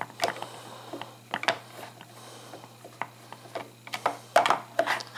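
Screwdriver working the screws on the back of a plastic handheld multimeter case: irregular small clicks and scrapes of metal tip against screw and plastic, with a louder run of knocks about four and a half seconds in as the case is handled.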